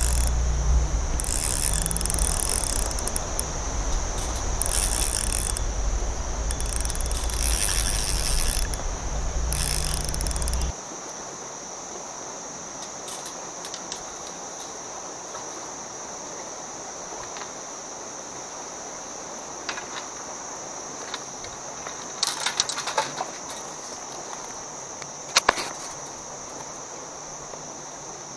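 A loud low rumble with repeated bursts of high hiss for about the first ten seconds, cutting off suddenly; under and after it a steady high-pitched insect drone, with a few faint clicks near the end.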